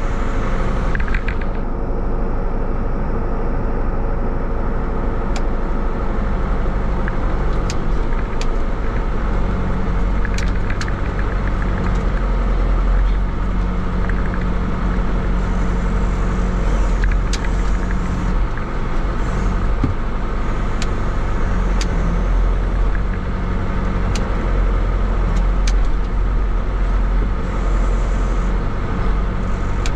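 Tractor engine running steadily as its front-end loader carries a scoop of canary reed grass, with scattered sharp ticks and rattles over the engine noise.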